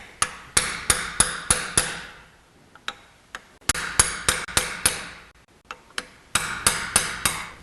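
Hammer strikes on a chisel driven between the pinion seal lip and the pinion carrier housing of a Ford 9-inch differential, working the seal loose. The sharp metal-on-metal blows come in three quick runs of about five to seven strikes each, with short pauses between them.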